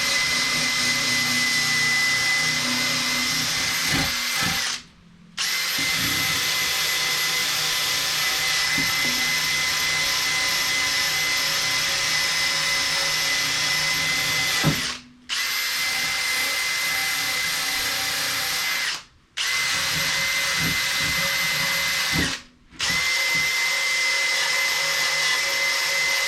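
Handheld electric power tool, drill-like, running at steady speed with a high whine while stripping old gasket material off an aluminium valve cover. It runs in long stretches and stops briefly four times, each time spinning down and starting again.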